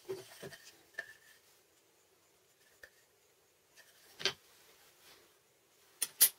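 Wooden pieces and a steel ruler being handled and set down on a tabletop: a few soft thumps and clicks, a sharper knock a little past four seconds, and two quick, sharp clicks near the end, the loudest.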